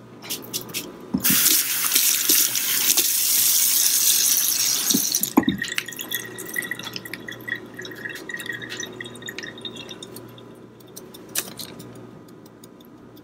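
Water running hard from a kitchen tap for about four seconds, then stopping with a knock, followed by faint clinks.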